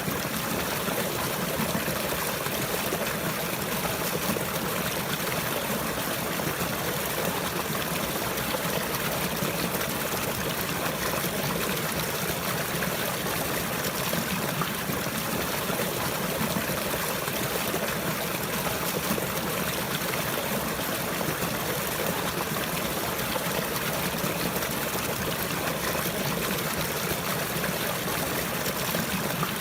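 Running water flowing and trickling steadily, an even continuous rush with no change throughout.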